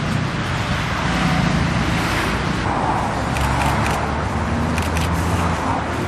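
Road traffic noise: vehicle engines and tyres running as a steady low hum.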